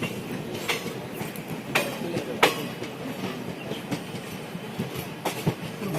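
Amaravati Express passenger train running on the rails: a steady rumble with a few sharp, irregularly spaced wheel clacks over rail joints.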